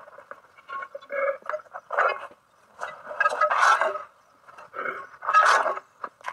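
Knife cutting through crisp pizza crust and scraping across the metal sadj griddle in several short scraping strokes. The two longest and loudest come in the second half.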